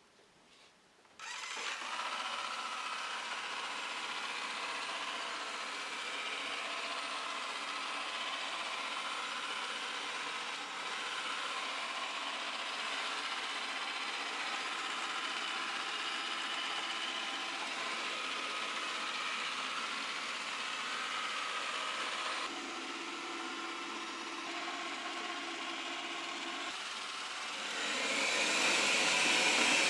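Shellbot SL60 robot vacuum running: a steady whir that starts about a second in, shifts in tone a couple of times and gets louder near the end.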